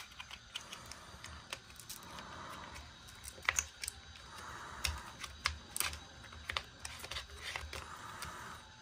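Faint, irregular small plastic clicks and rubbing as a battery lead is fitted by hand to an RC crawler's speed-controller plug.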